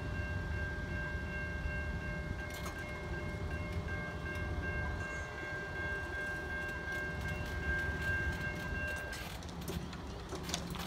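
Tram level crossing's electronic warning bells ringing steadily while the boom gates lift after the trams have passed, then stopping about nine seconds in. A low rumble of traffic and rail runs underneath, with a few clicks after the bells stop.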